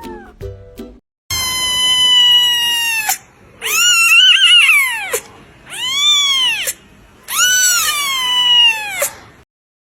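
A kitten meowing four times in high, drawn-out calls. The first is long and slowly falling, the second wavers up and down, and the last two arch up and then fall.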